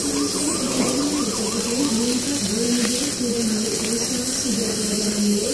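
An indistinct voice wavering up and down in pitch, over a steady high hiss.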